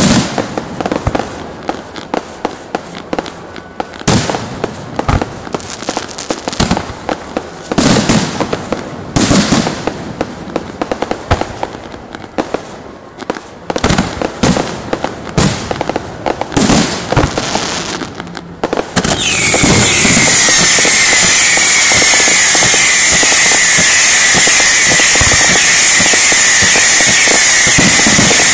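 Electrically fired fireworks going off in irregular sharp bangs, single and in quick clusters. About two-thirds of the way in they give way to a loud, continuous hissing whistle that stays on at a steady level.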